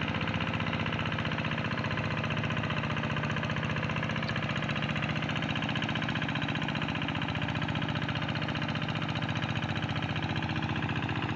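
Tractor engine running steadily under load while plowing a rice paddy: an even drone with a fast, regular firing pulse.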